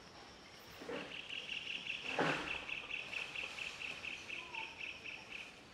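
An insect trilling in quick even pulses, about seven a second, that starts about a second in and stops near the end. A short louder noise breaks in about two seconds in.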